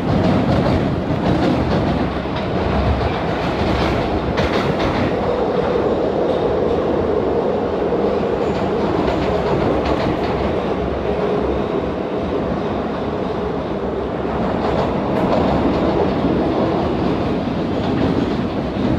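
PATH PA-5 subway car running through a tunnel, heard from inside the car: a loud, steady noise of wheels on rail, with a few sharp clacks about four seconds in.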